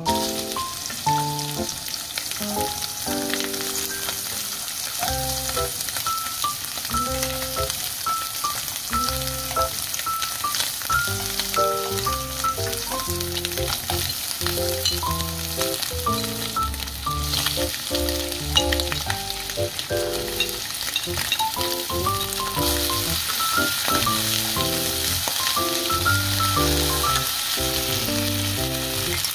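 Spam pieces sizzling as they fry in cooking oil in a pan, then potato, zucchini and onion stir-fried with them. Background music with a piano-like melody plays over the sizzle.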